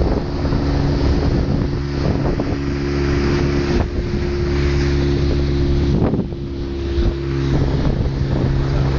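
Boat engine running steadily under way, with wind on the microphone and water noise; the engine's hum eases briefly a little past halfway.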